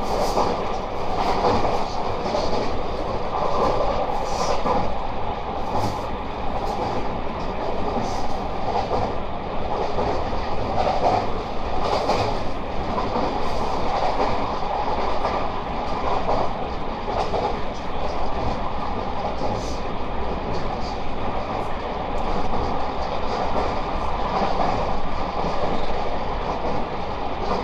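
Running noise of a JR West 223 series 2500 subseries electric train heard inside the passenger car: a steady rumble of wheels on rail, with short, sharp clicks every few seconds.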